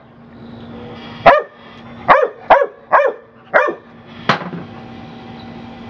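Pit bull terrier barking about six times in quick succession, sharp and loud, over a faint steady hum.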